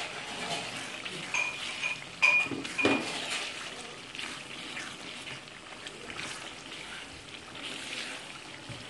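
Minced meat sizzling in an oily pan while a spatula stirs it. A few sharp ringing clinks against the pan fall between about one and three seconds in.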